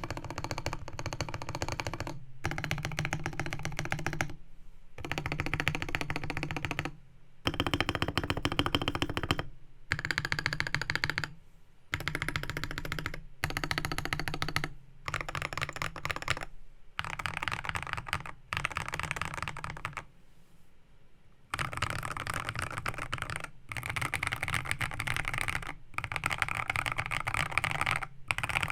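Typing on a GK64 custom mechanical keyboard in a bamboo case, with a brass plate, lubed JWK Matcha 68g switches, XDA keycaps, PE foam and tape mod. Runs of rapid keystrokes last a second or two each, broken by short pauses and one longer pause about two-thirds of the way through.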